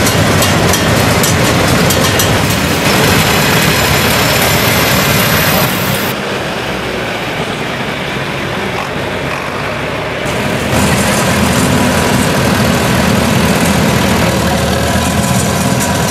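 Vintage farm tractor engines running, in short clips that change abruptly. For the first few seconds the exhaust beats in quick, even pulses.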